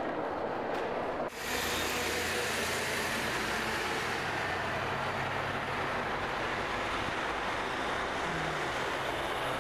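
About a second of indistinct crowd chatter, then a sudden change to city street traffic: a steady rumble of a bus engine and passing cars, with a low hum.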